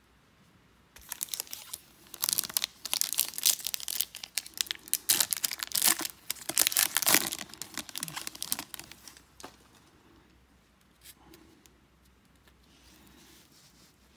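A 2022 Topps Series 1 hobby pack wrapper being torn open and crinkled by hand, a dense crackling that starts about a second in and stops about nine seconds in.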